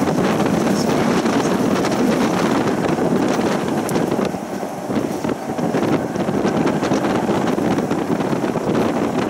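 Wind rushing over the microphone at an open window of a moving tram, over the tram's running noise. It is a loud, steady rush that eases briefly about halfway through.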